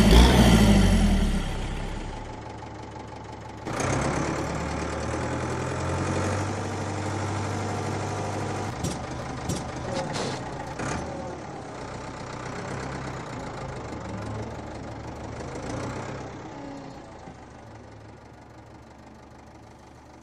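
Cartoon sound effect of a tractor engine running: loud at first, dropping away about two seconds in, then running steadily again from about four seconds, with a few sharp clicks partway through, and fading out in the last few seconds.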